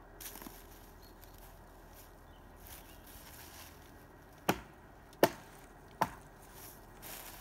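Three chops of a small axe into the wood of a fallen tree, evenly spaced a little under a second apart, about four and a half seconds in.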